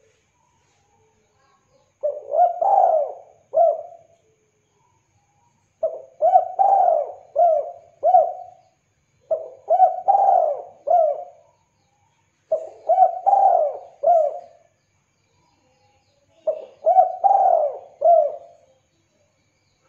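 Spotted dove cooing: five phrases of three to five quick coos each, repeated every three to four seconds with short pauses between.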